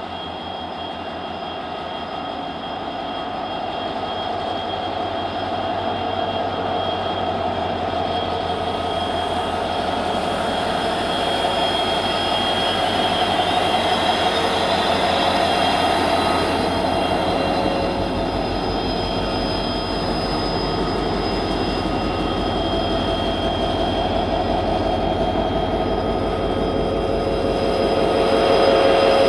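EMD-built WDP-4 diesel-electric locomotive humming, its two-stroke diesel running steadily with a low rumble and several fixed whining tones, growing louder over the first half and then holding steady.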